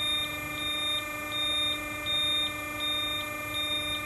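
Hydraulic press's safety alarm beeping at an even pace, about four high beeps every three seconds, over a steady machine hum. The alarm signals that the light curtain has been broken and the press has stopped, and it is waiting for a reset.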